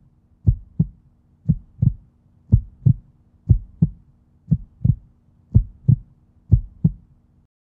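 Heartbeat sound effect: paired low thumps in a lub-dub rhythm, about one double beat a second, over a faint steady hum. It stops shortly before the end.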